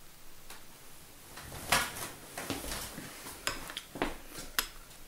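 A metal spoon clinking and scraping in a glass dessert bowl of mousse and whipped cream: a string of sharp clinks and knocks, the loudest a little under two seconds in.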